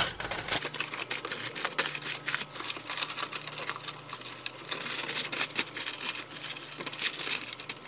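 Foil and baking paper being handled and crumpled, a rapid irregular crinkling crackle, over a low steady hum.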